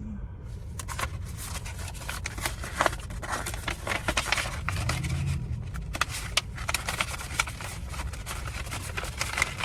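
Crinkling and rustling of paper and plastic packaging being handled while a gift basket is put together, over the steady low hum of a car cabin with the engine and heater running.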